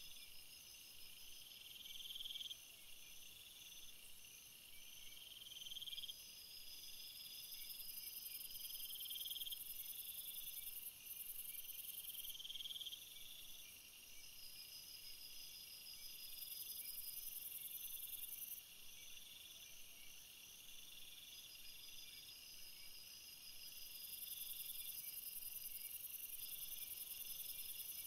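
Faint, high-pitched insect chirping like crickets: several overlapping pulsing trills that switch on and off abruptly every few seconds.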